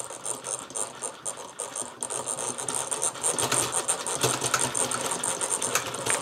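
Meccano beam engine model driven fast by hand: its steel strips, rods, pivots and spinning flywheel clatter in a rapid, busy rattle that grows louder about two seconds in.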